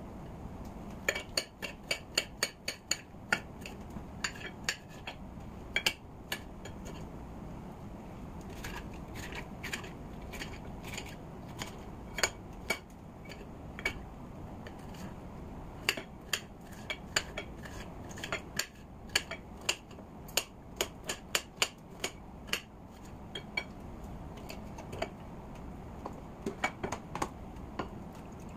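Kitchen knife dicing green bell pepper on a ceramic plate: runs of sharp clicks as the blade strikes the plate, with short pauses between runs.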